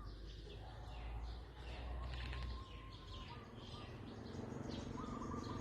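Faint outdoor ambience: scattered short bird chirps over a low background rumble.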